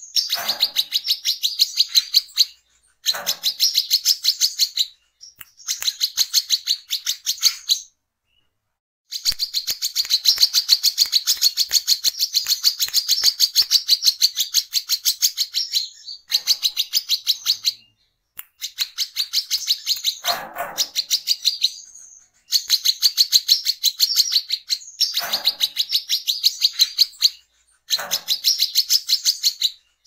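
Brown-throated sunbird singing a fast, high chattering song of rapidly repeated notes, about five a second, in runs of several seconds broken by short pauses.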